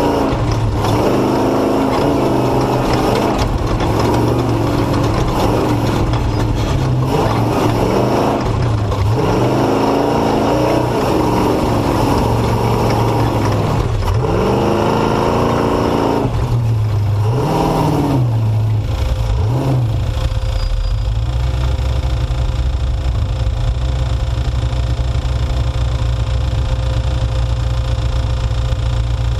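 Truck engine revving up and down, its pitch rising and falling repeatedly as it is driven off-road through deep silt and rocks. About twenty seconds in it settles to a steady, lower run.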